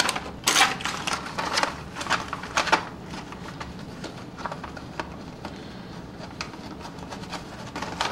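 Small cardboard model-train boxes and HO scale freight cars being handled: rustling and light clicks and taps, busiest in the first three seconds and then sparse.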